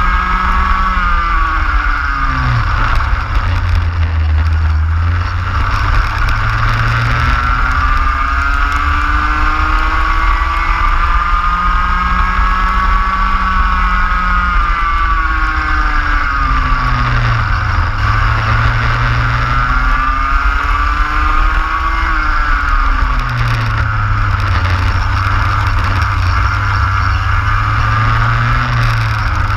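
Racing kart engine heard onboard at full racing pace. Its revs climb steadily for several seconds at a time, then drop sharply, over and over, as the kart accelerates and slows through the lap.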